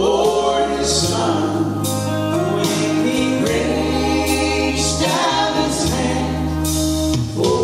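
Gospel vocal trio, a man and two women, singing in harmony over instrumental accompaniment.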